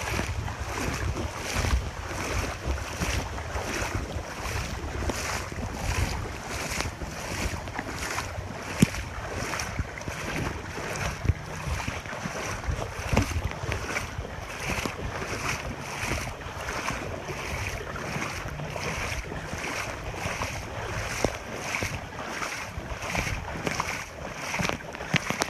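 Footsteps wading through floodwater, sloshing in an even rhythm of about two strides a second, with wind rumbling on the phone's microphone. One sharp click stands out about nine seconds in.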